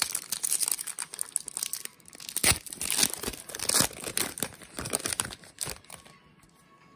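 Foil trading-card pack wrapper torn open and crinkled by hand: a dense run of crackling and tearing that stops about six seconds in.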